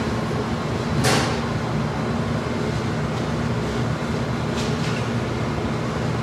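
Steady mechanical hum and rushing noise of kitchen machinery, with a sharp metallic click about a second in and a fainter one near the five-second mark as metal kabab skewers are handled.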